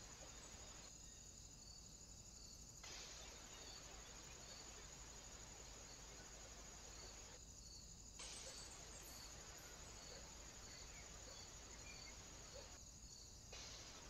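Near silence: faint outdoor background hiss with a thin steady high-pitched tone and a soft, evenly repeating pip about once every second or less, broken by brief dull gaps.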